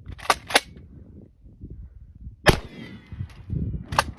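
12-gauge pump-action shotgun: the slide is racked with two sharp clacks, a single buckshot blast follows about two seconds later, and near the end the slide is racked again with two more clacks.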